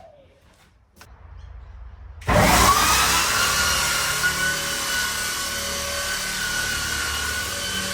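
Electric sander switched on about two seconds in, sanding the deck boards with finer-grit sandpaper: a sudden loud start, its motor whine rising briefly and then running steady.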